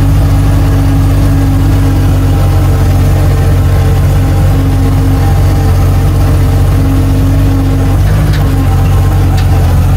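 1948 Bedford truck's six-cylinder engine running at a steady speed while the truck is driven, heard from the cab.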